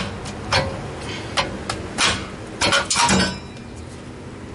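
Old rear brake rotor being worked off the wheel hub and set down: a run of sharp metallic clanks and knocks, the loudest about three seconds in.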